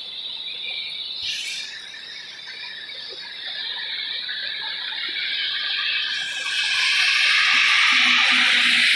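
Heavy rain hissing steadily, growing louder about two-thirds of the way in, with vehicle tyres swishing through water standing on the road.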